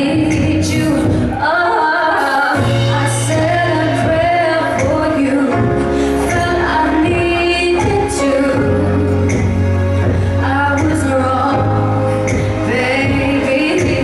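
Live pop song: a woman singing into a handheld microphone over a band, with a steady bass line and cymbal hits.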